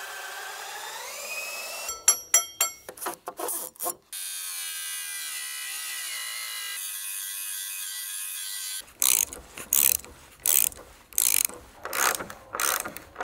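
A power drill whining up in speed, then running steadily for several seconds, followed by a run of ratcheting strokes, about two a second: nuts being tightened onto threaded rods that fasten timber boards to log posts.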